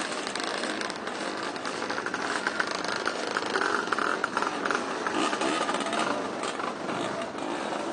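Vintage motocross motorcycle engine running as the bike moves slowly, louder for a stretch between about two and four seconds in.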